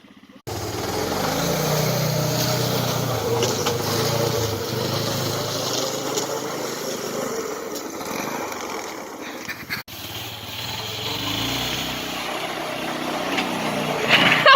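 Small engine of a 120 kids' snowmobile running steadily, with a sharp break about ten seconds in before it resumes.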